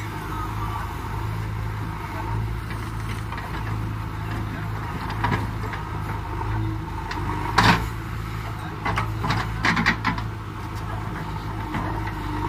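JCB 3DX backhoe loader's diesel engine running steadily as the backhoe digs and loads earth. A few sharp knocks cut through, the loudest just past halfway and a short cluster about two seconds later.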